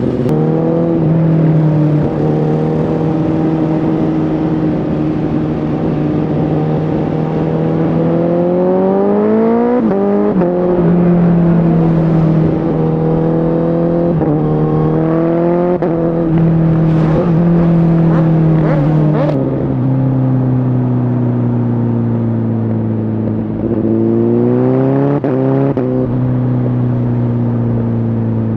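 Honda CBR1000RR Fireblade SC77 inline-four with an aftermarket Shark Factory exhaust, under way: it holds steady revs for stretches, and several times the revs climb and then drop sharply, as when the bike accelerates and shifts up a gear.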